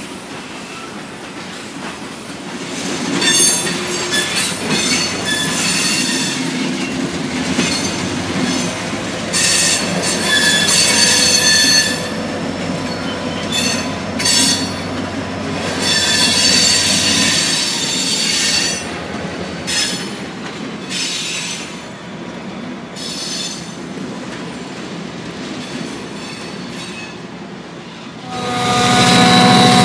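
Freight train rolling past, mostly tank cars and covered hoppers: steel wheels squeal high and repeatedly over the rumble of the cars. Near the end a louder engine sound with falling pitch comes in suddenly.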